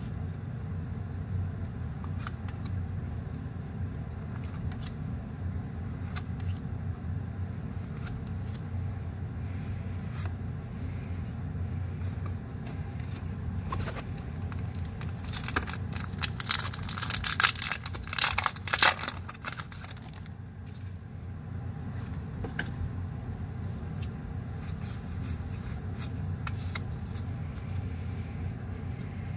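A foil Pokémon booster pack crinkling and tearing open for about four seconds in the middle, the loudest sound here. Cards clicking now and then as they are flipped, over a steady low hum of the car's idling engine.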